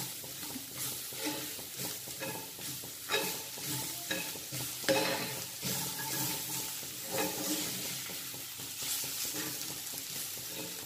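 Metal spoon stirring and scraping a frying beef-and-onion mince in a cast-iron kadai, over a steady sizzle. Louder scrapes against the pan come at irregular moments, several seconds apart.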